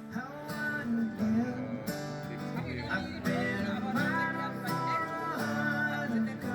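Music led by a strummed acoustic guitar, with a melody of held notes changing every half second or so.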